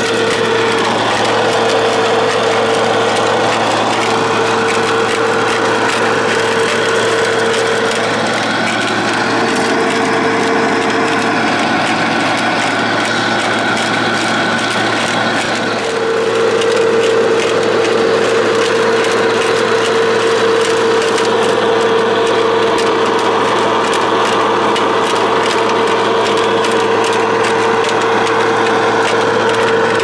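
Radio-controlled construction machine's electric motor running with a steady whine over a rough grinding noise. The whine sags in pitch about a second in, again around eight seconds in, and for several seconds in the middle, as the machine takes load.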